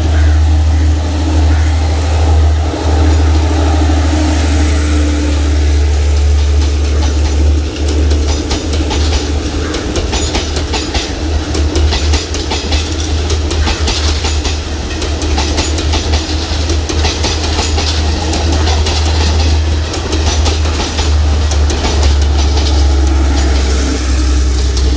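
A diesel multiple unit train passing close by. Its diesel engine drones as it approaches, then a fast run of wheel clicks over the rail joints as the carriages go past, and the engine drone comes back as the rear power car passes near the end.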